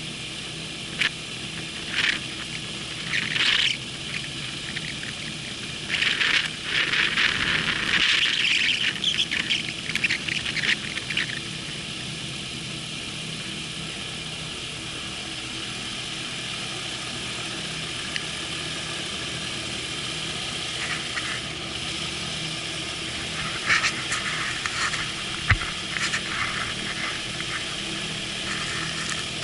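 MTO Sport gyroplane's engine running steadily at low power while taxiing. Clusters of high-pitched bursts cut in over it, a few seconds in, again for several seconds after that, and once more near the end.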